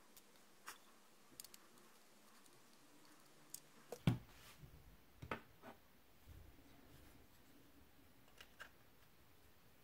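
Small, sharp clicks and light metal knocks from handling a laptop hard-drive mounting bracket and screwdriver while its screws are taken out, with a louder knock about four seconds in and a few more clicks near the end.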